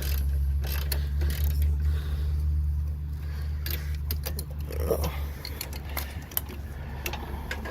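Metal hand tools clicking and clinking in scattered, irregular strokes as parts are worked loose under the hood, over a steady low hum.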